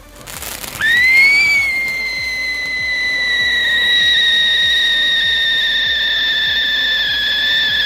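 Fountain firework spraying sparks with a steady hiss. About a second in, a loud whistle starts; it rises briefly, then holds one pitch, sinking slightly.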